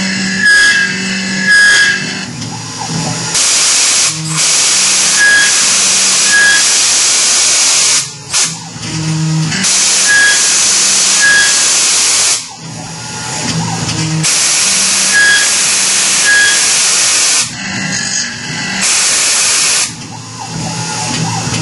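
Compressed-air blow gun hissing in long blasts of a few seconds each, with short breaks, blowing chips off the part. Underneath, the Tormach PCNC 1100 CNC mill's spindle runs a 3/8-inch four-flute carbide end mill finishing holes in 17-4 PH stainless steel, with short paired chirps about once a second.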